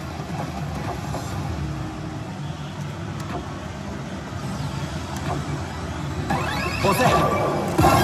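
Pachislot machine sound effects over the steady din of a pachinko hall: the reels stopping with faint clicks, a rising electronic sweep about six seconds in, then a sudden loud ringing fanfare near the end as the machine's bonus effect begins.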